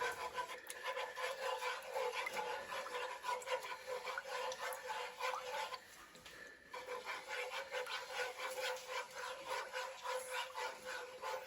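Utensil stirring a coconut-milk curry broth in a pan: a quick run of repeated scraping strokes with a faint ringing from the pan, pausing briefly about six seconds in.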